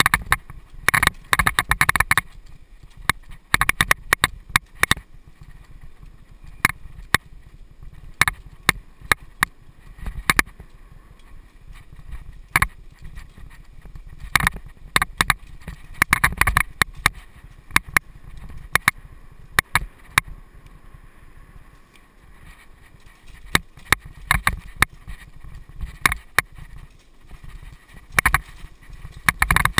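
Mountain bike riding over a bumpy dirt singletrack: irregular sharp clatters and knocks from the bike over a constant low rumble of tyres and wind.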